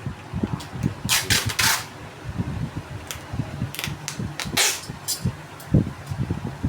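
Packing noises: brown wrapping paper crackling and rustling in short bursts, with scattered light knocks and clicks from handling the parcel.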